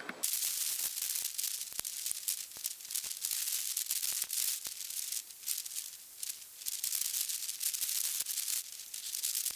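Heavy storm precipitation pattering on a nearby surface: a dense, crackling patter full of small sharp clicks, starting abruptly.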